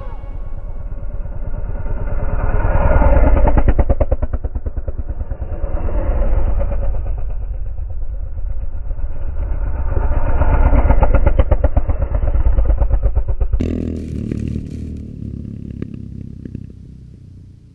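Dual-sport motorcycles riding past one after another, their engines swelling up loud and falling away again as each bike goes by. About 14 s in there is a sudden clatter, then the engine sound fades into the distance.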